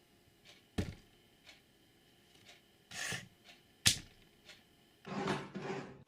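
Wood-working handling sounds: two sharp knocks, a short scrape about three seconds in, then a longer rubbing or scraping near the end, over a faint tick about twice a second.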